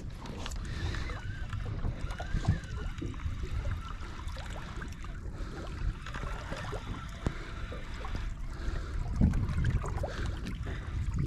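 Wind buffeting the microphone over water lapping against a small boat's hull, with a few small clicks.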